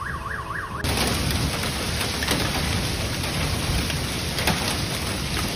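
A siren warbling quickly up and down cuts off less than a second in. Then heavy rain mixed with hail pelts down steadily, with a few sharper single hailstone hits.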